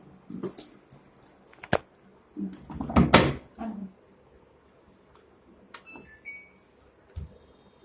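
Clicks and knocks from handling a front-loading washing machine, loudest about two and a half to four seconds in, followed near six seconds by a short run of electronic beeps at a few different pitches from its control panel, and a single thump near the end.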